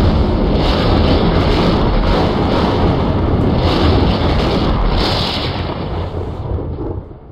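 A loud rumbling, crackling sound effect of the kind laid under an electrical lab scene, with brief brighter surges, fading out near the end.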